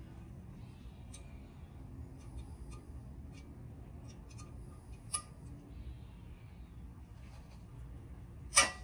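Scattered light metal clicks from a hand tool loosening the end-cap fasteners of an air-ride valve tank, with two sharp metallic clinks, one about five seconds in and one near the end.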